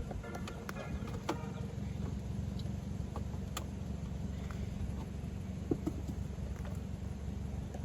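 A few scattered light clicks and taps of plastic dash trim being handled and worked loose, over a steady low hum.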